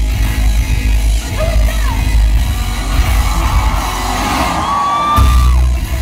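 Loud live rock band heard from within the crowd: a heavy, bass-laden beat with distorted guitar through the PA, with whooping and yelling voices over it. The bass drops out briefly near the end.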